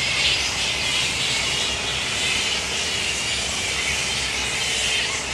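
A colony of grey-headed flying foxes in the roost trees, giving a continuous din of overlapping high squabbling calls, with a low rumble underneath.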